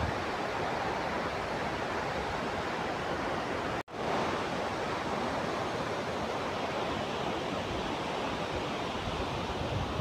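Steady rushing of a tall waterfall, a 150-metre fall of river water, heard as a dense even hiss. It breaks off for a split second just under four seconds in.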